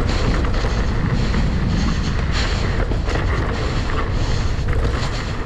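Wind rushing over the microphone with a steady low rumble and many small irregular knocks and rattles, as from a camera carried along on a fast downhill run.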